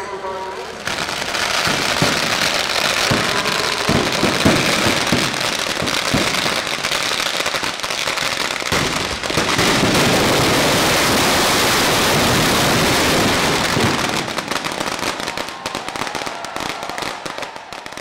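Fireworks going off in a dense barrage of firecracker crackle, with heavier separate bangs in the first half. About halfway through it thickens into an unbroken crackle, which thins out toward the end.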